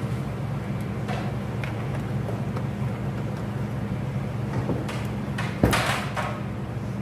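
Kitchen sounds at a gas stove: a steady low hum throughout, with a few light clicks and one sharper knock about five and a half seconds in as pans and utensils are handled.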